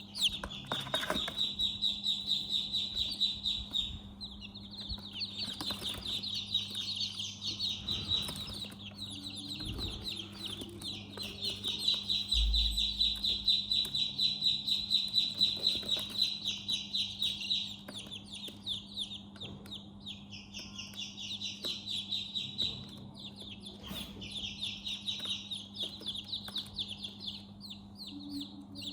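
A brood of newly hatched chicks peeping nonstop, many high chirps overlapping into a continuous chorus, over a steady low hum.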